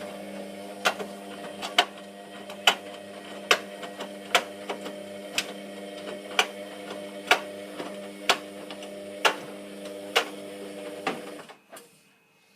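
Hotpoint Aquarius WMF720P washing machine running with a steady hum and a sharp click about once a second. The hum and clicks stop suddenly shortly before the end.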